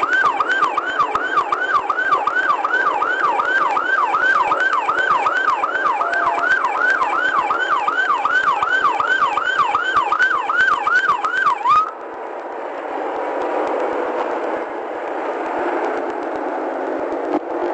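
Police car siren on a fast yelp, sweeping up and down about two and a half times a second, which cuts off suddenly about twelve seconds in, leaving a steady noisy vehicle rumble.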